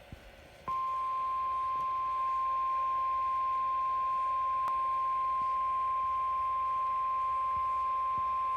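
NOAA Weather Radio warning alarm tone: a single steady 1050 Hz tone starting about a second in, over faint radio hiss. It is the attention signal of an Emergency Alert System broadcast, announcing that a warning message follows.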